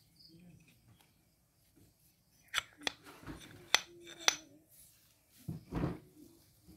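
Metal parts of a tractor hydraulic gear pump clinking as the opened pump is handled. There are a few sharp clinks, some with a short ring, about halfway through, and duller bumps near the end.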